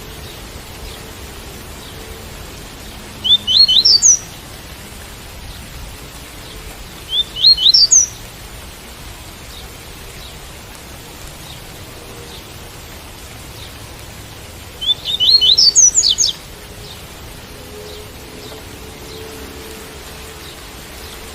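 Double-collared seedeater (coleiro) singing the 'tui-tui' song in three short phrases of quick, rising whistled notes, over a steady hiss of rain.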